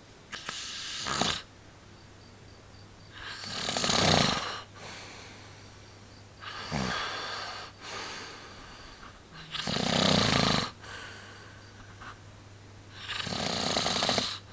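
A person snoring in their sleep: five snoring breaths in a slow, steady rhythm, about one every three seconds.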